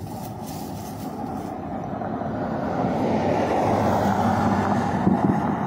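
A road vehicle driving past: a rushing rumble that swells to a peak about four seconds in and then starts to fade.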